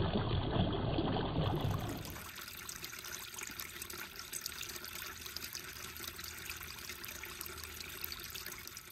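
Shallow creek babbling over rocks. About two seconds in this gives way to a quieter trickle of water, with fine drips, running off an icicle-hung rock ledge.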